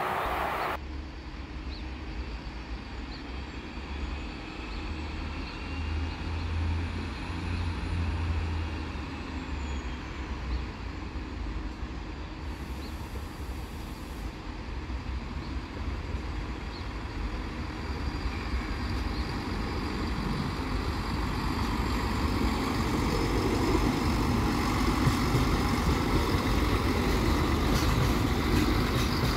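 Regio-Shuttle RS1 diesel railcar running with a steady low engine drone as it approaches and passes close by, growing louder over the second half.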